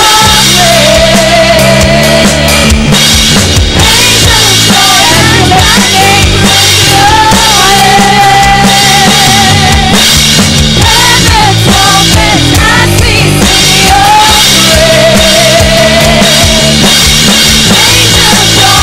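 Live worship band playing loud, with a drum kit and bass under a woman singing lead into a microphone, holding several long notes.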